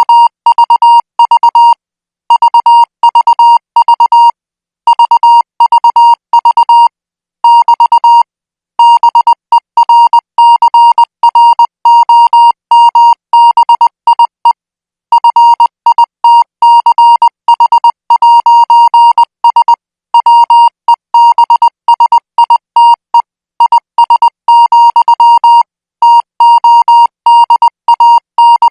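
International Morse code practice signal sent at 20 words per minute: a single steady beep keyed on and off in dots and dashes. It comes in groups separated by short pauses.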